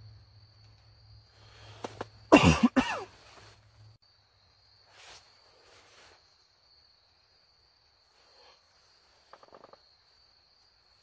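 A man coughs loudly several times in quick succession about two seconds in, over a faint steady chirring of insects. After that there are only faint rustles and a few small clicks.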